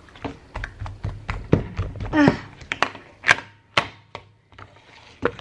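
White slime stretched, squeezed and poked by hand, giving an irregular run of sticky clicks and pops.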